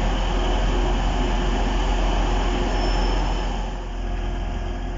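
Class 185 diesel multiple unit, with Cummins diesel engines, moving along the platform: loud steady engine and wheel noise with a deep hum. After about three and a half seconds it drops to a quieter steady engine hum.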